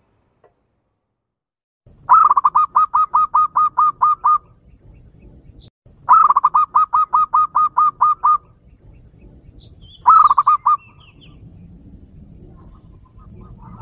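Zebra dove (perkutut) lure call: rapid cooing notes repeated about four times a second, in two phrases of about two seconds each and a short third one about ten seconds in.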